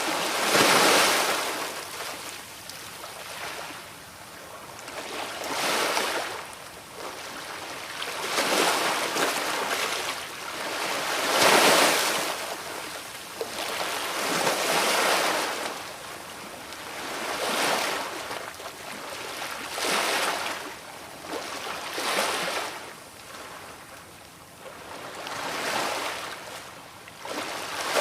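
Sea waves washing ashore one after another, each a rushing swell of surf that rises and falls every two to three seconds. The biggest surges come about a second in and near the middle.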